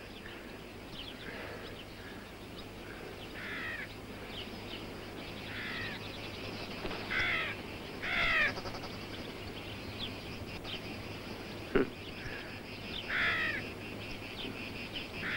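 Crows cawing, short calls every second or two, over a faint steady background hiss, with a single sharp knock about twelve seconds in.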